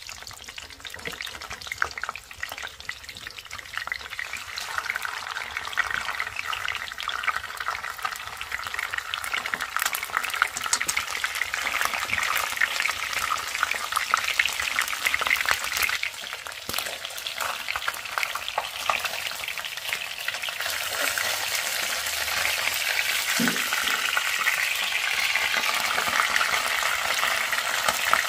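Food frying in hot oil in a pan, sizzling and crackling steadily, growing louder over the last third.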